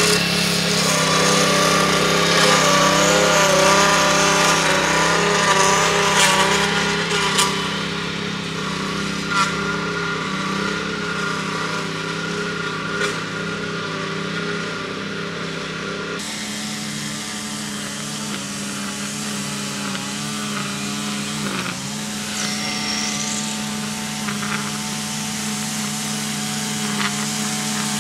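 A small petrol engine running steadily. About halfway through, its higher tones drop away abruptly, leaving a steadier low hum.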